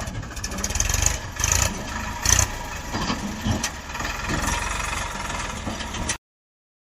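Diesel engine of a backhoe loader or tractor running steadily, with a few brief louder clanks or bursts of noise; the sound cuts off suddenly near the end.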